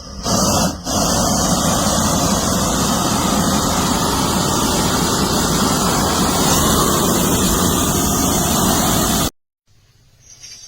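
Propane weed burner torch flame burning at high output, a steady, loud, even roar of gas and flame. It comes in just after the start, dips briefly, then holds steady until it cuts off abruptly near the end.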